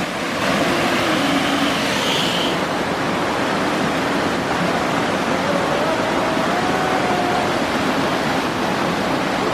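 Steady rushing of a rocky stream and small waterfall.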